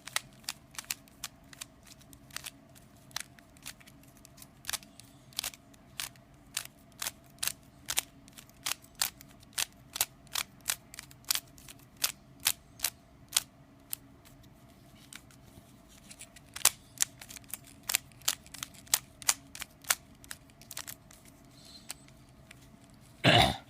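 Plastic concave cube twisty puzzle being turned by hand, its layers clicking sharply into place one or two times a second, with a short pause partway through.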